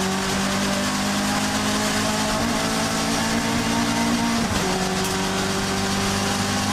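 Alfa Romeo 1750 GTV's twin-cam four-cylinder engine heard from inside the cabin, running hard at high revs under racing load, with wind and road noise. The engine note changes abruptly about four and a half seconds in.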